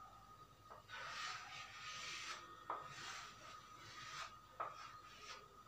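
Chalk scratching faintly across a chalkboard in drawing strokes, with a few light taps.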